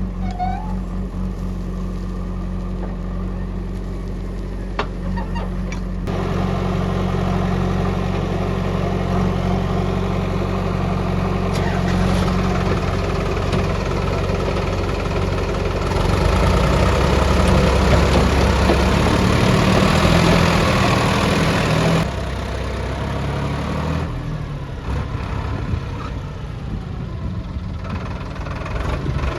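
Heavy diesel engine running and working, its level rising about six seconds in and again about sixteen seconds in, then dropping back about twenty-two seconds in.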